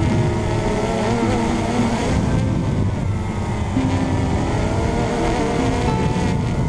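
RC Logger EYE One Xtreme quadcopter's electric motors and propellers whining at several pitches that shift and waver, over a steady rush of propeller wash on the onboard GoPro's microphone.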